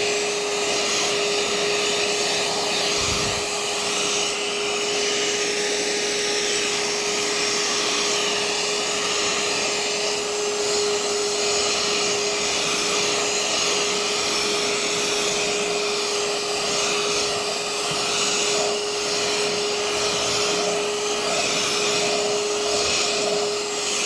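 RIDGID 18-volt compact hand vacuum (R860902) running steadily with its floor nozzle, sucking dirt and debris out of low-pile commercial carpet: a steady motor whine over rushing air.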